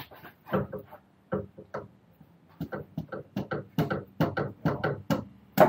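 Repeated sharp metallic knocks as the Tesla Model 3 front drive shaft is struck to drive it into the gearbox until its retaining ring snaps in. A few knocks, a short pause, then a quicker series, the loudest near the end.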